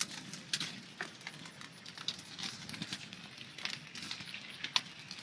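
Bonfire of old wooden fence posts and debris burning, with irregular sharp crackles and pops over a steady hiss.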